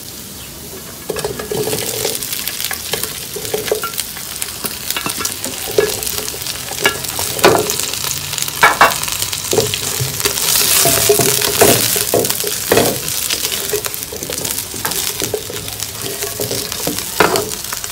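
Deep-fried chicken wings sizzling in hot oil in a nonstick wok as they are stir-fried with ginger and garlic, with repeated scrapes and knocks of the spatula against the pan. The sizzling is briefly louder about ten seconds in.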